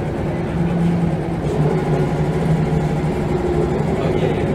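Scania L94UB bus's rear-mounted diesel engine running with a steady drone, heard from inside the passenger saloon.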